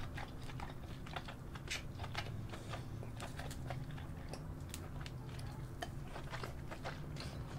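Close-miked wet mouth sounds of eating sauce-dipped king crab meat: irregular soft smacks, sucks and clicks, a few a second.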